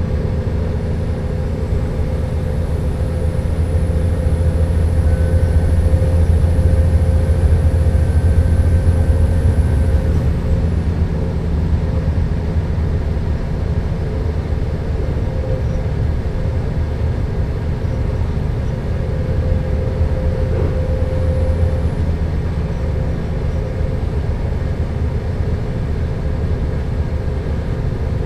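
Alstom LINT 41 H diesel multiple unit under way, its diesel engine giving a steady low drone. The drone grows louder about four seconds in and eases back about ten seconds in, with a faint high whine above it until then.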